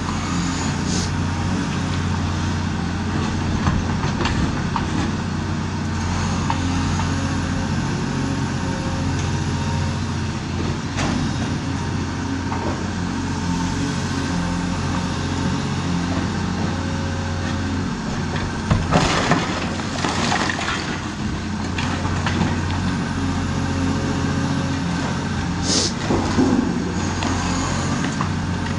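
Caterpillar 336E hydraulic excavator's diesel engine running steadily, its pitch stepping up and down as the hydraulics work the sorting grab against a brick wall. Clattering crashes of breaking masonry come through, loudest about two-thirds of the way in and again near the end.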